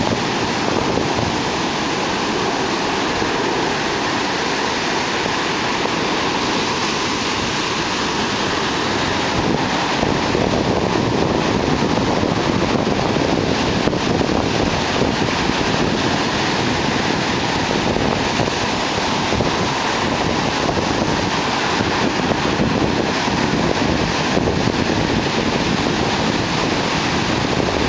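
Big ocean surf: large waves breaking offshore and whitewater rushing up the beach, a continuous loud rush that gets a little heavier about ten seconds in.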